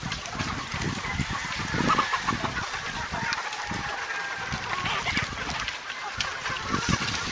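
A large flock of chickens clucking and calling all at once, a busy, unbroken din with scattered low thumps, as the birds crowd to a feed trough at feeding time.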